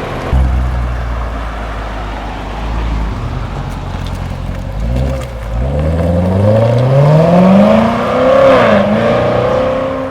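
A car engine gives a deep, loud rumble, then accelerates away with its pitch climbing steadily for about three seconds. Near the end the pitch dips briefly and then rises again.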